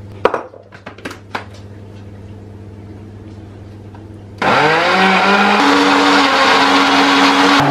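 A few knocks as the lid goes onto a countertop blender jar, then about four and a half seconds in the blender starts, its motor whining up to speed and running loud as it blends chopped bananas, eggs and sugar. Its pitch steps up about a second after it starts.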